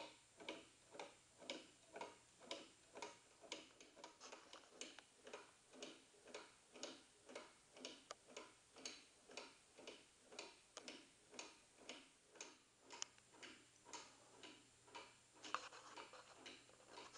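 Wooden-gear pendulum clock ticking steadily, about two ticks a second, with one louder click near the end.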